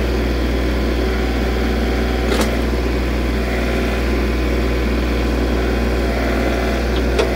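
Engine of a piece of rented earth-moving equipment running steadily, with two short sharp knocks, one about two and a half seconds in and one near the end.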